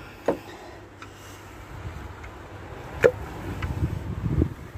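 Hand tools clinking against a car engine's top while a spark plug is being removed: two sharp metal clicks, just after the start and about three seconds in, with low rumbling handling noise building toward the end.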